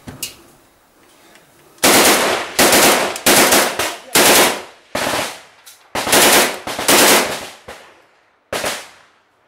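Gunfire in a firefight: about eight loud bursts of shots, starting about two seconds in, each ringing out briefly, the last one after a short pause near the end.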